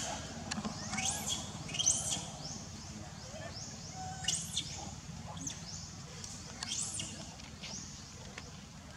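Short, shrill, high-pitched animal chirps, single and in quick pairs, several times over a low steady hum.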